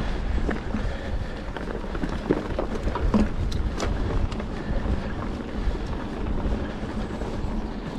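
Mountain bike rolling along a rough dirt track: a steady rumble of wind on the microphone and tyres on the ground, with frequent small knocks and rattles from the bike jolting over bumps.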